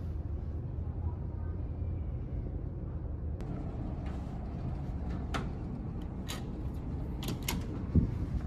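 A cabin door with an electronic card-key lock being unlocked and opened: a run of sharp clicks from the lock and handle, then a thump near the end as the latch releases and the door swings open. Under it runs a steady low hum of the ferry underway.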